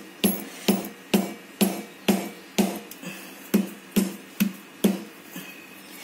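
Dried ginger (sukku) being pounded with a hand-held stone on a hard countertop: sharp knocks, about two a second, each with a short ring.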